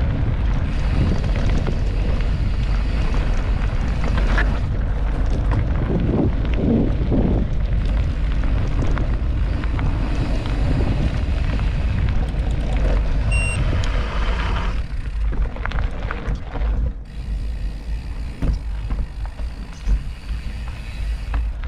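Mountain bike riding a forest trail: wind buffeting the microphone as a deep, steady rumble, with tyre noise and rattle from the trail. It eases and turns more uneven about two-thirds of the way through, as if the bike slows.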